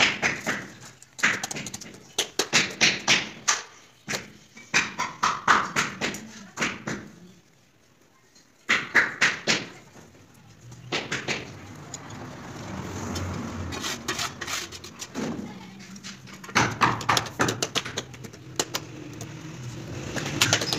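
Tile-setting work: bursts of quick taps and knocks, several a second, as wall tiles are tapped down into their mortar bed, with a short lull about eight seconds in.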